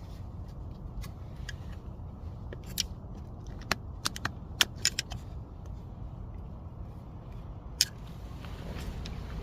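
Scattered sharp clicks and taps of plastic parts being handled, bunched in the middle with one more near the end, as a steering-column multifunction switch is worked free of the column, over a steady low background rumble.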